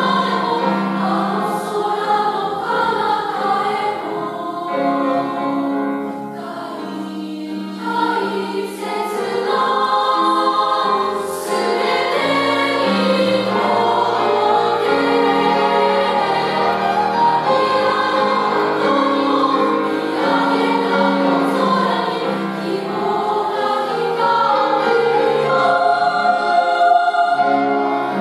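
Girls' choir singing a Japanese song in several parts, with grand piano accompaniment.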